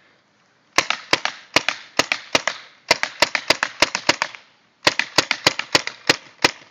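Paintball gun firing in rapid strings of sharp pops, about six shots a second. There are three strings of roughly nine shots each, with short pauses between them.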